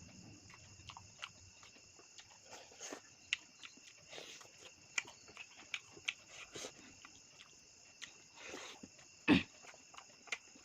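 Scattered chewing and mouth sounds of someone eating, with small clicks and one sharper click about nine seconds in, over the steady high chirring of crickets.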